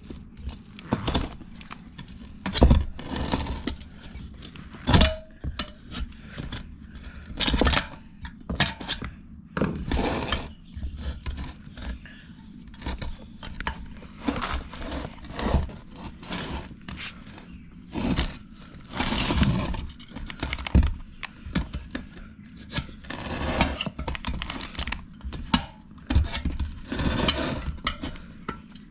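Metal tire spoons prying a dirt bike tire off its rim: irregular metal clinks, knocks and scrapes against the rim, with the loudest knocks a few seconds in and near the end.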